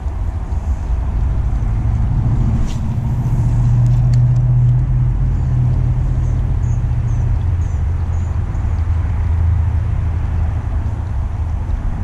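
Low, steady rumble of a passing train, swelling about four seconds in and easing off toward the end.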